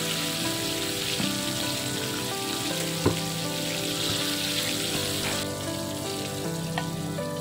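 Hot oil sizzling and bubbling as batter-coated chicken drumsticks deep-fry in a pan, under background music with long held notes. A single sharp click about three seconds in.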